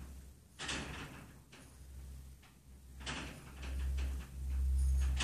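Steel ball screw being turned by hand in steel V-blocks to check its runout: two short metal-on-metal scraping rubs, about a second in and again about three seconds in, with a low hum that grows louder in the second half.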